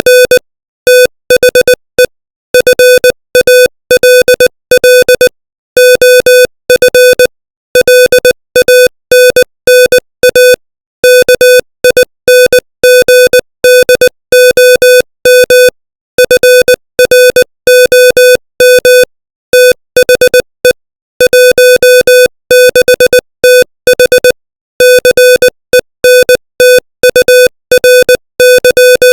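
Morse code sent at 20 words per minute: a single steady tone keyed on and off in dots and dashes, with short gaps between letters and longer pauses between words.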